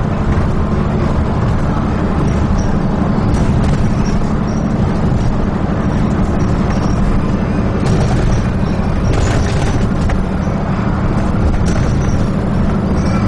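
Dennis Trident 2 double-decker bus heard from inside while under way: a steady engine and road drone with a low hum, and a few brief rattles from the body.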